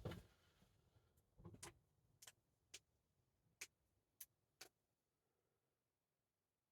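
Faint clicks and taps from a snapback cap being handled and put on, about seven sharp clicks spread over the first five seconds.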